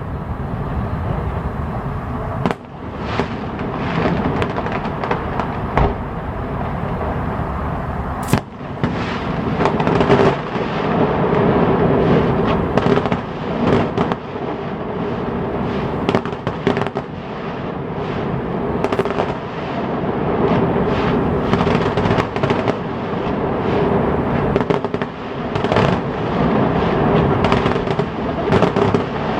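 Fireworks display going off in a dense barrage: a continuous run of overlapping bangs and crackles, with sharper single reports at about two and a half and eight seconds in.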